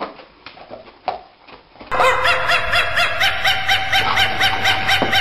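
Quiet room sound with a few soft knocks. About two seconds in, a loud run of rapid high-pitched laughter starts, about five snickers a second.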